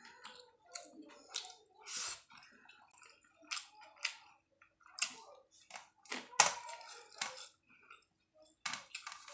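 Eating sounds: wet chewing and lip smacks, a string of short, sharp clicks at irregular intervals.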